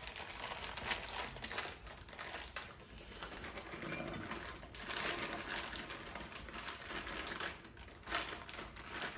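Clear plastic bag of golden raisins crinkling and rustling as it is handled and shaken out, an irregular run of small crackles and clicks.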